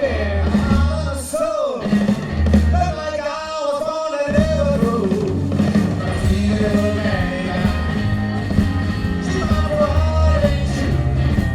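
Blues and R&B band playing live, with a singer over bass, guitar and drums for the first few seconds, then the band playing on.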